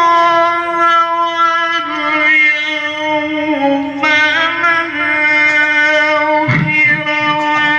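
A male Quran reciter's voice, amplified through a handheld microphone, drawing out long ornamented notes of tilawah recitation. The pitch holds steady, then steps down and back up between notes. A short noisy burst comes about six and a half seconds in.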